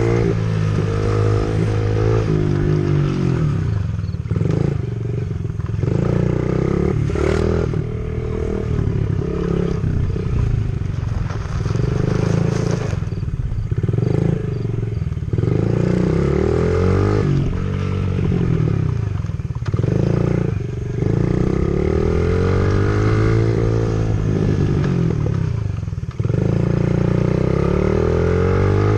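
Small dirt bike engine revving up and down over and over as the throttle is opened and closed, its pitch climbing and dropping every second or two while riding across grass and gravel.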